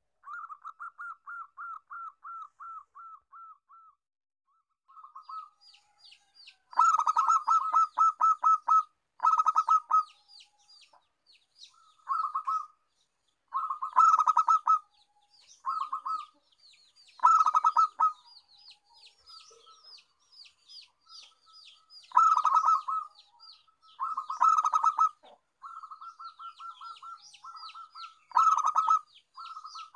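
Zebra dove (perkutut) calling: rapid staccato trills of short cooing notes, repeated in bursts of a second or two with short gaps. From about five seconds in, a thinner, higher chirping of quick falling notes runs along behind the trills.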